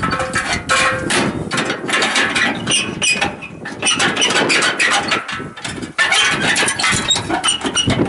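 Steel disc-housing hood of a wood chipper being swung shut and fastened by hand: a run of irregular metal knocks and clanks.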